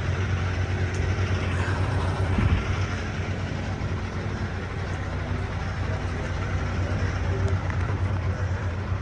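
Motor vehicle engine and road noise: a steady low hum under a broad rushing haze.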